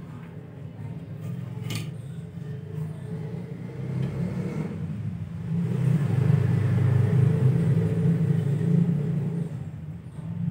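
A steady low mechanical rumble, like a motor running nearby, that swells from about six to nine seconds in. There is one sharp click a little under two seconds in.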